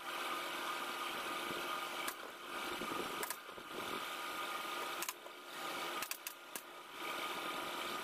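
Steady mechanical running noise with a few light clicks scattered through it.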